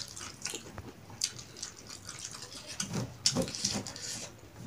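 People chewing and smacking food close to the microphone while eating with their hands: a rapid, irregular run of short clicky mouth sounds, thickest about three seconds in.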